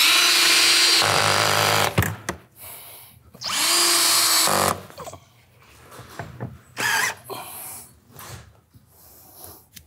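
Cordless drill driving screws through a metal Z closure into the wall: a run of about two seconds, then a shorter one of just over a second, followed by a few faint clicks.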